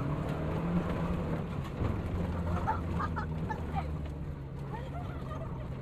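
Maruti Suzuki Gypsy's four-cylinder petrol engine running steadily at low speed on a dirt track, heard from inside the cabin. A few faint short calls sound over it about halfway through.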